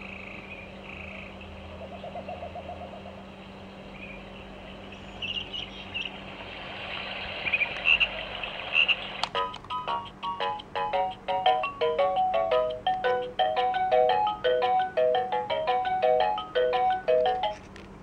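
Fisher-Price Rainforest Melodies and Lights baby gym's electronic sound unit playing recorded rainforest sounds through its small speaker: a frog croaking and short high chirps. About nine seconds in, a bright chiming melody of quick notes starts suddenly and stops just before the end.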